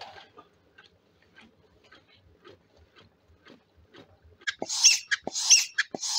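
Homemade wood-fired Stirling engine running slowly, first as a faint tick about twice a second. About four and a half seconds in it turns much louder: a rhythmic puff of air with a sharp knock, roughly once every 0.7 s.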